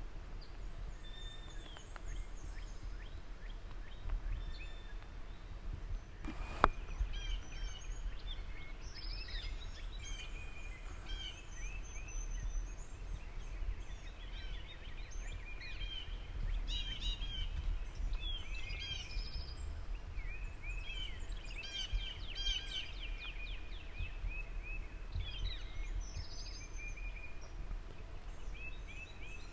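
Several songbirds singing together in a dawn chorus of overlapping chirps and warbles, over a steady low rumble. A single sharp click sounds about six and a half seconds in.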